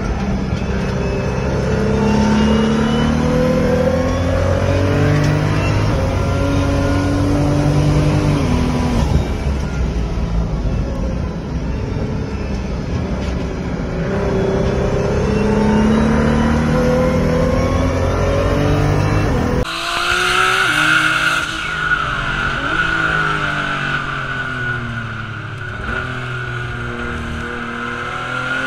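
Race car engine heard from inside the cabin, its pitch climbing and dropping back several times as it accelerates and shifts up. About twenty seconds in, the sound changes to another car whose engine runs under a steady high tyre squeal.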